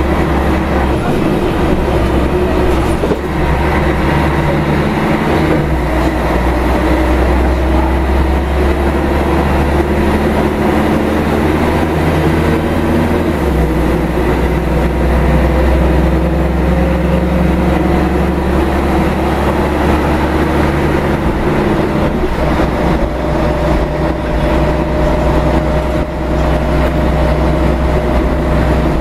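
Scania L113CRL bus on the move, heard from inside the passenger cabin: the rear-mounted Scania DSC1171 11-litre six-cylinder turbo diesel drones steadily under road and body noise, its low note changing in steps a few times, about six, thirteen and twenty-two seconds in. The ZF 5HP500 five-speed automatic gearbox is quiet.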